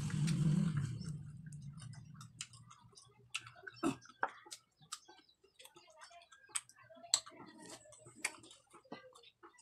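Close-up eating sounds: wet lip smacks and sharp mouth clicks at an irregular pace as ripe papaya is chewed and eaten by hand. A louder low rumble dies away in the first second or so.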